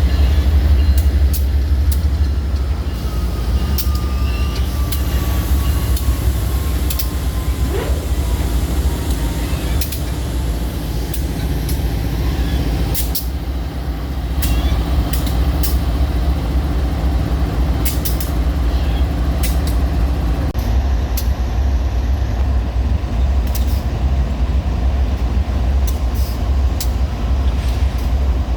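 GE diesel locomotive engines running with a steady deep rumble and a slowly falling whine in the first third, and scattered sharp clicks throughout. The engine note changes about two-thirds of the way through.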